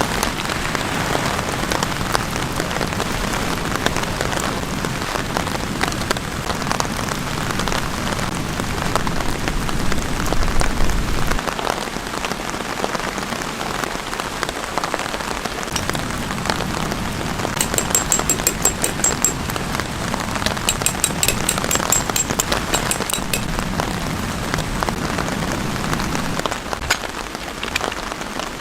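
Steady rain falling, with many separate drops tapping. A rapid, high-pitched ticking trill comes in twice about two-thirds of the way through.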